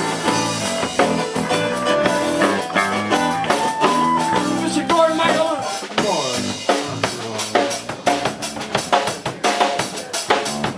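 Live band playing: drum kit, electric bass, guitar and flute. About halfway through, the held notes thin out and the drums come to the front with quick, dense hits.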